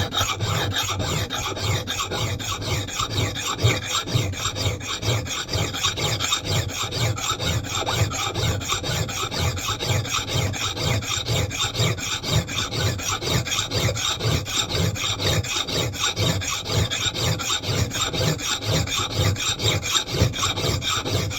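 Hand file rasping across the steel bit of a Mann Edge Tool Company knot klipper axe in a steady run of quick, even strokes, reprofiling the edge into a chopping edge.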